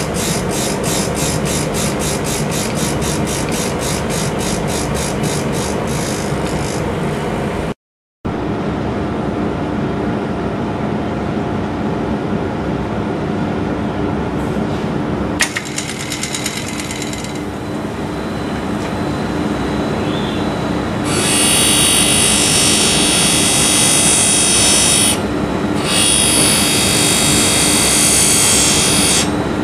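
Lapidary grinding wheel running while a stone on a dop stick is ground against it: a steady motor hum under a gritty grinding noise, pulsing a few times a second at first. There is a brief cut about eight seconds in, and the grinding grows much louder and harsher over the last third.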